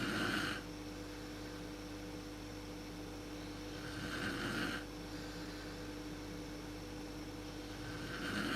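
A sleeping woman snoring: a snore about every four seconds, each lasting under a second, over a steady low hum.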